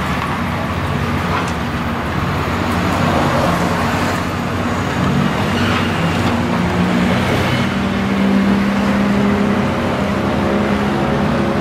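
Steady low engine drone with a hum that grows stronger from about five seconds in.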